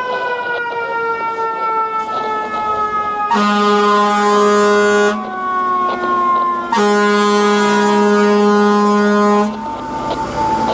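Fire ladder truck's siren slowly falling in pitch after winding up, overlaid by two long blasts of its air horns about a second and a half apart, the second one longer; the horns are the loudest sound.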